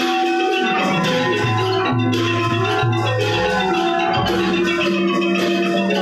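Thai piphat ensemble playing, led by ranat xylophones struck in a fast, unbroken run of notes. Long held lower notes sound beneath them, changing pitch every second or so.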